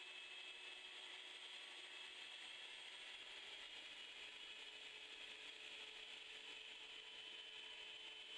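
Shop vac running faintly with a steady hiss and a thin whine, sucking polystyrene pellets through its hose with a fast mechanical clicking.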